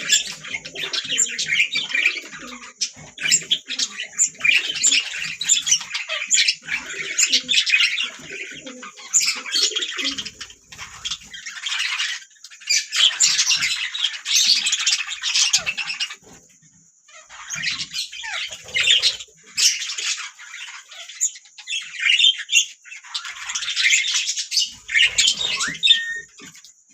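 A flock of budgerigars chirping, warbling and squawking in quick, busy bursts, with a brief lull about two-thirds of the way through.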